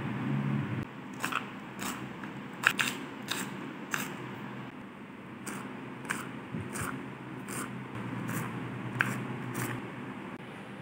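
Kitchen knife chopping garlic cloves on a wooden cutting board: a sharp tap each time the blade meets the board, irregularly spaced at a little more than one a second.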